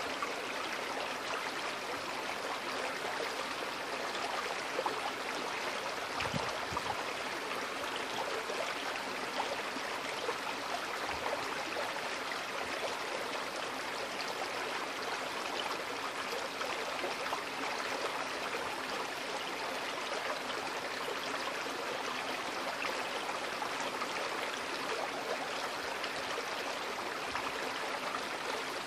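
Shallow creek water flowing steadily over a stony bed, a continuous even trickling rush.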